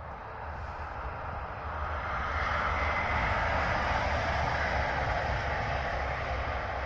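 DB Class 633 Pesa Link diesel multiple unit passing along the line, its engine and its wheels on the rails swelling over the first two or three seconds, then holding and easing slightly.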